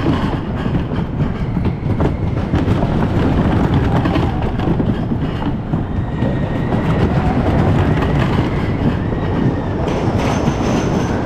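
Roller coaster train running along its track, heard from on board: a steady, heavy rumble and clatter of wheels on the rails, with a thin wheel squeal in the middle.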